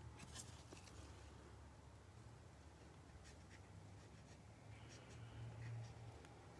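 Near silence: faint room tone with a low hum and a few faint ticks of gloved hands handling trading cards.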